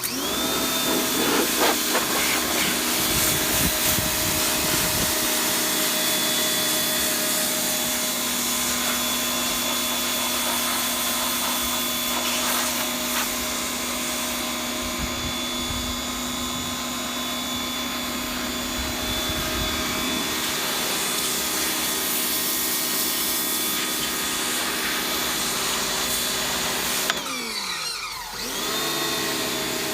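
Electric pressure washer with an 1800-watt universal motor, switching on abruptly and running steadily with a high motor whine. Near the end the motor's pitch sags briefly and then spins back up.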